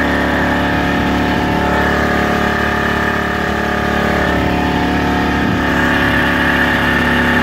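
Small inboard engine of a vintage wooden motor boat running steadily under way, an even drone with many overtones that dips slightly about three seconds in and picks up again near the end.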